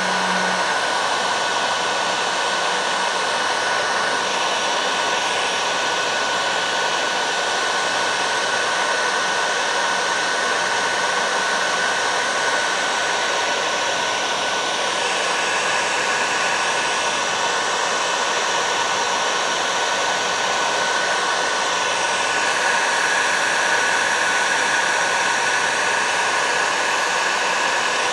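Heat gun blowing steadily with a constant rush of air and a thin steady whine, shrinking heat shrink tubing onto plier handles.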